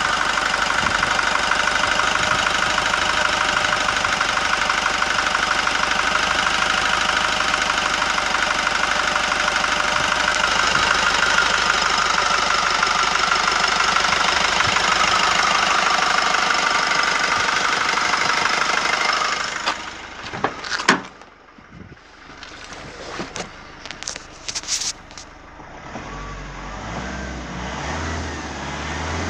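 A 2008 Nissan Navara D22's 2.5-litre four-cylinder turbo-diesel idles steadily, heard close up in the engine bay. After about two-thirds of the way, the sound drops away and a few sharp clicks and knocks follow. Near the end, the engine is revved, rising in pitch.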